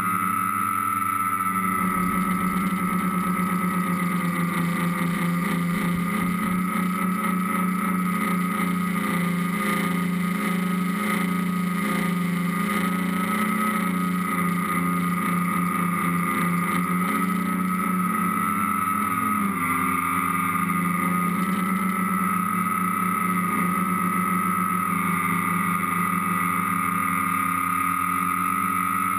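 Motors and propellers of a radio-controlled tricopter, heard from its onboard camera: a loud, steady whine whose pitch wavers slightly as the throttle shifts.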